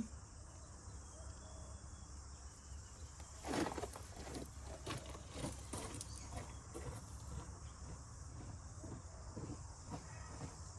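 Tractor engine idling in the background as a low, steady hum, with scattered light clicks and knocks and one louder knock about three and a half seconds in.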